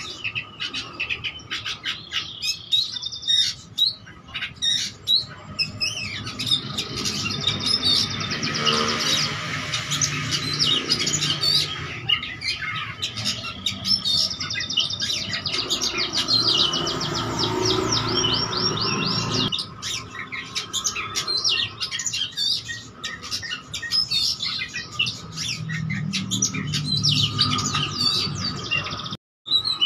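Oriental magpie-robin (kacer) singing loudly and without pause, a varied song full of mimicked calls of other birds (isian), broken by fast trills of rapidly repeated notes.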